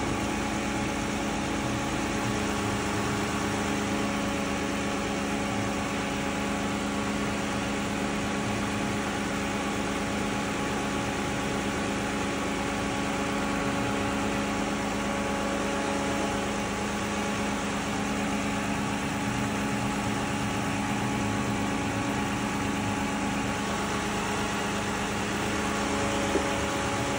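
Car engine idling steadily, an even hum that does not change. It is running with the radiator cap off and the coolant bleeder screw open, to purge trapped air from the cooling system after a top-up.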